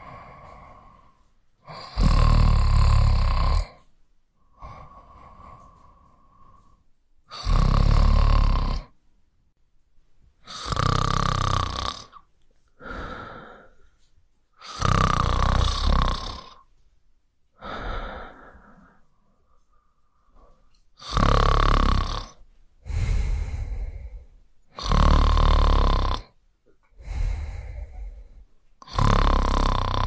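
A person snoring: a loud snore with a deep rumble roughly every four seconds, alternating with softer breaths in between.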